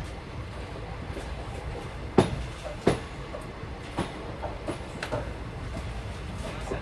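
A moving train's wheels running on the track: a steady low rumble with irregular clicks of wheels over rail joints, the two loudest knocks about two seconds in, less than a second apart.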